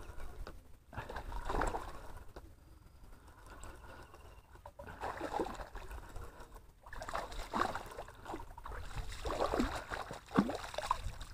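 Hooked golden dorado splashing and thrashing at the water surface while being played on the line: several irregular splashes, most of them in the last few seconds.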